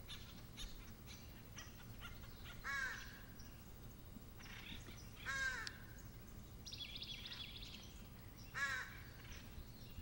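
White-breasted nuthatch giving three separate yank calls, each a short note with many overtones, spaced about two and a half to three seconds apart. Faint high chips and a brief trill sound in the background.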